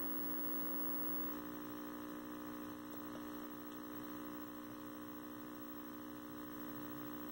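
A 1973 Toshiba C321 hybrid tube/transistor colour TV, switched on, giving a steady mains hum with a buzz of evenly spaced overtones.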